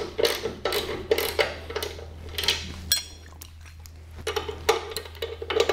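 Ratchet wrench snugging the spring plate bolts on a VW swing-axle rear suspension: sharp metallic clicks in quick strokes about three a second, a single ringing metal clink about halfway, a short pause, then more clicking.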